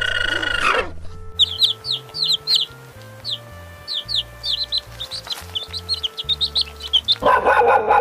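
Young chicks peeping: many quick, high cheeps, each falling in pitch, over about six seconds. It opens with the end of an alpaca's steady pitched call, and a dog starts barking near the end, over faint background music.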